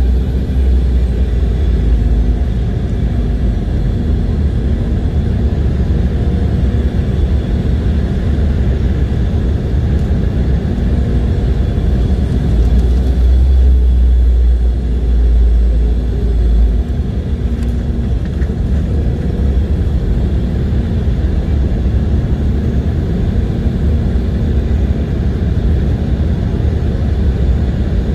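Steady jet airliner cabin noise: a constant deep rumble with rushing air and a faint steady hum. The deepest part of the rumble eases a little about two-thirds of the way through.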